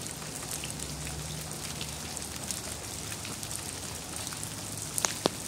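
Light, steady patter of wet snowfall and drips landing on the wet pavement, leaves and snow, made up of many small scattered ticks. Two sharper, louder clicks come just before the end, over a faint low hum.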